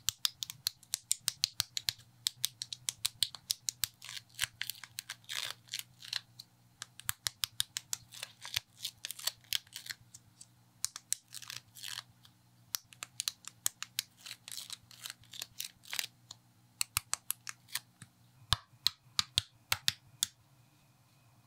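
Small plastic building bricks clicking and snapping together in quick, irregular succession as they are pressed onto one another and handled, thinning out near the end, over a faint steady low hum.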